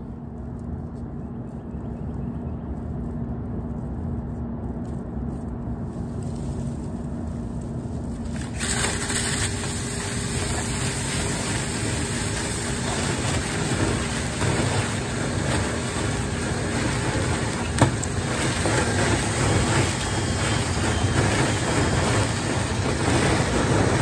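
Steady hum and rushing air at a clothes dryer's exterior wall vent. About eight and a half seconds in, a much louder, hissing rush sets in and keeps building as a drill-spun rotary brush rod works inside the lint-clogged duct.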